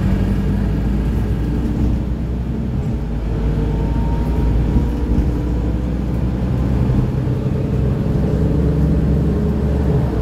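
Mercedes-Benz Citaro O530G articulated bus with ZF Ecomat automatic gearbox under way, heard from inside the passenger cabin: a steady engine and road drone whose pitch rises and falls a few times as the bus drives on.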